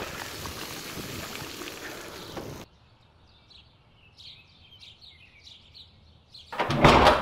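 Wind noise on the microphone and bicycle tyres hissing on a wet road. This cuts off abruptly after about two and a half seconds, leaving quiet birds chirping. Near the end comes a short, loud burst of noise.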